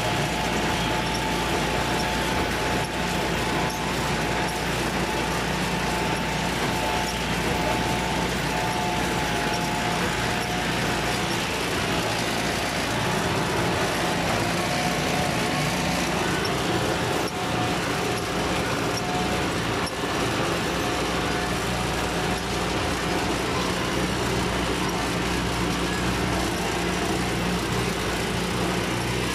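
IMT 577 tractor's diesel engine running steadily, with a faint whine over it through roughly the first half.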